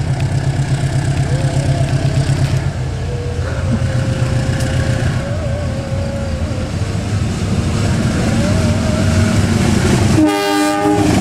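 CC 206 diesel-electric locomotive working hard on its approach, a loud, steady, fast-pulsing engine rumble. About a second before the end it gives one short horn blast.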